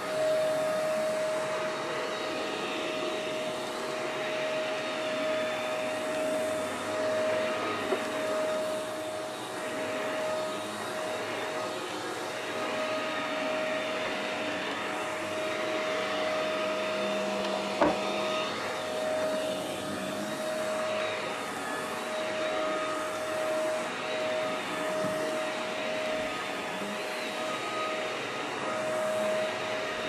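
Shark Navigator NV201 upright vacuum cleaner running steadily with a constant motor whine, pushed back and forth over carpet; its suction is working normally after reassembly. Two short sharp knocks, about a quarter of the way in and a little past halfway.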